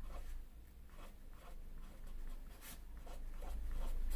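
Pen writing numbers on paper, its tip scratching in short, irregular strokes as digits are written out.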